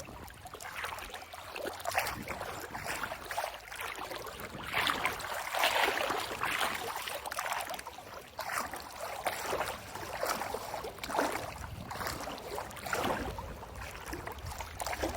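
Someone wading through knee-deep river water, splashing and sloshing in uneven surges with each stride.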